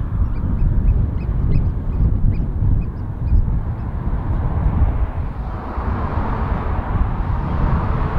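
Low rumble of a narrow-gauge steam train running away along the line, with a bird giving a rapid series of short calls in the first few seconds and a broad hiss building in the second half.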